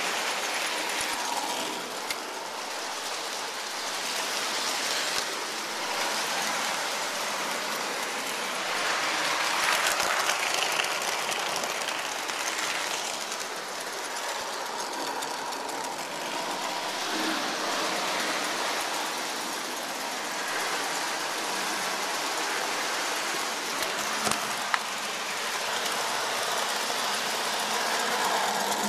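Lionel toy train running on three-rail steel track, heard close up: a steady rolling rumble and whir of wheels and electric motor, with a few sharp clicks from the rails, once about two seconds in and twice near the end.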